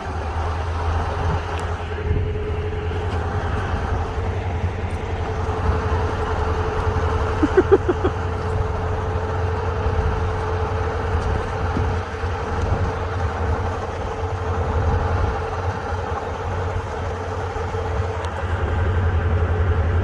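Boat motor running steadily under way, a constant low rumble with a steady hum, with a short rattle of several clicks about seven and a half seconds in.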